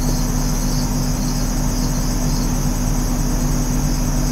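Steady background noise: a low hum with a constant high-pitched buzz above it, unchanging throughout.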